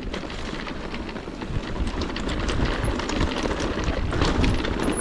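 Electric mountain bike riding down a rough trail: tyres on loose stones and the chain and frame rattling, with many sharp clicks and knocks, over a steady wind rumble on the action-camera microphone.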